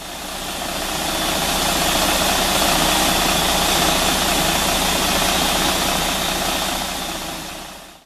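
Diesel engine of a Mercedes-Benz fire engine idling steadily: a low hum under a broad hiss, with a thin steady high whine. It fades in and fades out.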